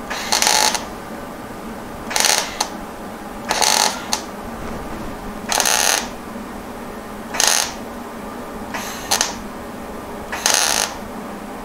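Hobart MIG welder arc crackling in seven short bursts, each under half a second, one to two seconds apart, as a patch is tacked into a rusted steel floor pan. The arc is eating away the thin old metal rather than fusing it, with the voltage still set too high.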